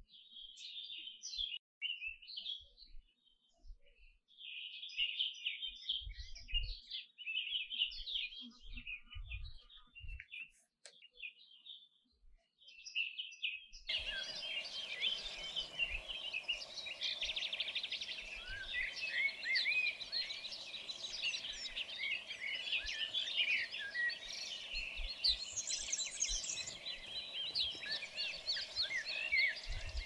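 Caged canaries chirping and twittering in short bursts, becoming a dense, continuous warbling song about halfway through, when a steady background hiss and hum also comes in.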